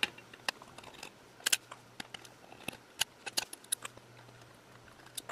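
Irregular small metallic clicks and ticks from a Torx screwdriver and the small screws of a hard drive's platter mounts being worked loose, with the sharpest clicks about a second and a half in and again around three seconds.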